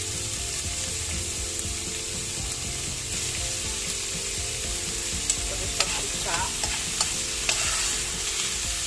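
Cubes of beef sizzling steadily as they fry in hot pork lard in a pan. From about five seconds in, a spoon stirs them, with a few sharp clicks and scrapes against the pan.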